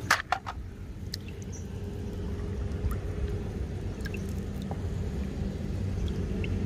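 A toy forklift set down into a red plastic basket of toy cars, clattering in a few quick sharp knocks, then water stirring as a hand moves through a shallow muddy pool.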